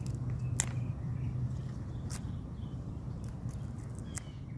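Bottom leaves of a pineapple pup being pulled off by hand, a few sharp snaps as they break away, over a steady low hum.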